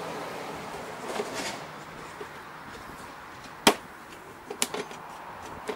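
Handling noises from work on a lawn mower: a brief rustle a little after a second in, one sharp knock about two-thirds through, then a few lighter clicks.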